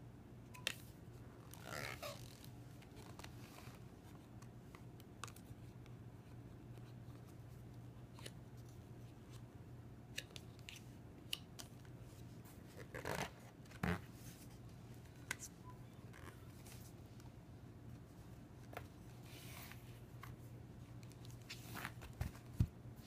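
Quiet, scattered handling sounds of a cardboard lift-the-flap book: pages and card flaps rustling and tapping now and then, over a faint steady low hum.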